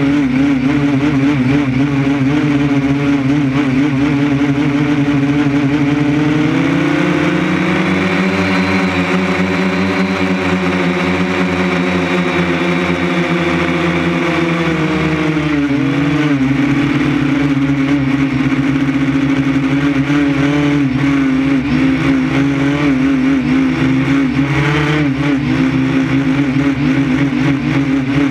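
Drone motors and propellers whining steadily, heard through the drone's own camera. The pitch wavers throughout, rises about seven seconds in, holds, and drops back about sixteen seconds in.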